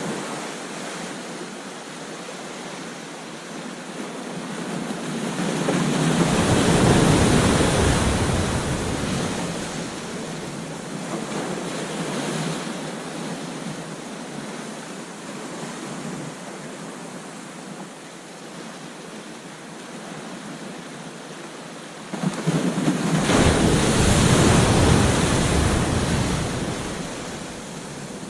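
Ocean surf washing onto a beach in a steady hiss, with two waves breaking loudly, one about a quarter of the way in and one near the end. Each loud break brings a deep rumble, partly wind buffeting the microphone.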